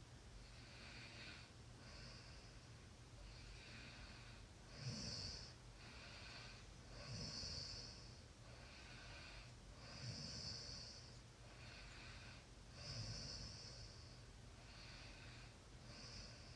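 A sleeping person snoring softly: fainter breaths with four louder, rattling snores spaced about two and a half to three seconds apart.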